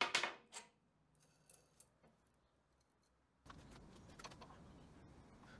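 Light metallic clinking and rattling of a tapered roller bearing and a brass sleeve being handled on a steel lathe spindle shaft, loudest in the first half-second with a short ringing tail. A few faint ticks follow, then faint steady workshop noise past halfway.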